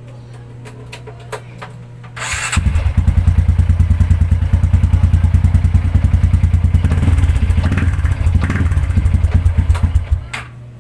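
Honda Wave 125i's single-cylinder four-stroke engine starts about two seconds in and runs at idle with a steady pulsing beat, freshly oiled and tuned. It is switched off abruptly near the end.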